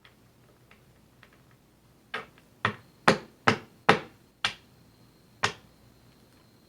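Seven sharp knocks on a hard surface, about two a second, the last one after a short pause, with a few faint clicks before them.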